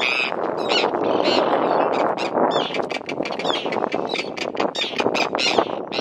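Hooked seabird giving repeated short, harsh distress calls, about one or two a second, over a steady rushing background.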